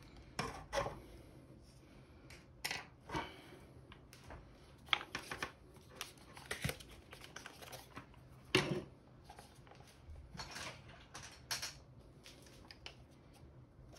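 Scattered clicks and knocks of a plastic DSG mechatronic unit and hand tools being handled and set down on a wooden workbench, at irregular intervals, with one louder knock a little past halfway.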